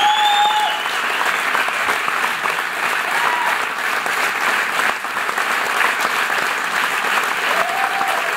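Audience applauding steadily, with a few shouted cheers near the start and again near the end.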